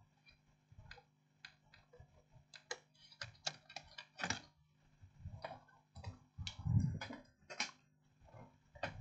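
Plastic snap clips of an Asus X543N laptop case clicking as the case is pried apart. The sharp clicks are scattered at first and come thicker after about three seconds, with a dull knock about two-thirds of the way through.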